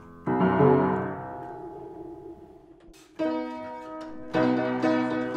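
Instrumental music: a struck chord rings out and slowly fades, then a new chord comes in about three seconds in and a fuller one just after four seconds.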